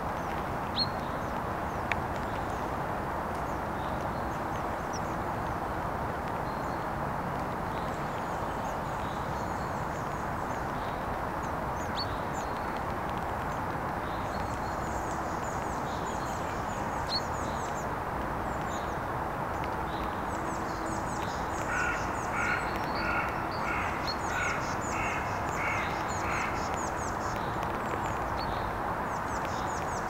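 Songbirds chirping and trilling faintly and high over steady background noise. About two-thirds of the way through, a run of about seven harsh, evenly spaced calls, like quacking.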